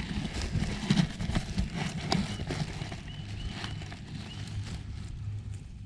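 A run of irregular clicks and knocks of a hand tool working a fastener on a Toyota Prius Gen 2's plastic cover, thickest in the first couple of seconds, with a steady low hum underneath.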